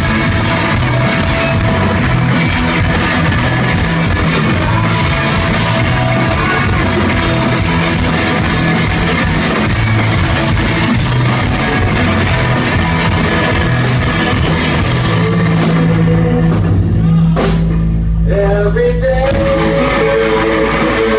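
Live rock band playing loud, with drum kit and electric guitars. About three-quarters of the way through, the drums and cymbals drop out, leaving a low sustained note, and then a lone guitar starts picking out a rising phrase.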